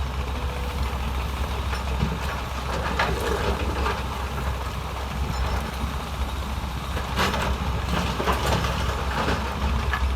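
Heavy diesel earthmoving machinery running steadily, with short bursts of clanking and scraping about three seconds in and again around seven to eight seconds in.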